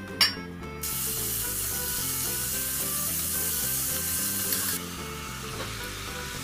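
Beef sizzling as it stir-fries in sesame oil in a stainless steel pot, after a short knock. The sizzle starts about a second in and cuts off suddenly after about four seconds. Soft background music plays throughout.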